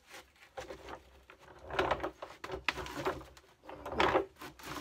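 Wooden front baffle board of a Marshall 4x12 speaker cabinet creaking and scraping against the cabinet as it is tilted and worked out, with louder scrapes about two seconds in and again near the end.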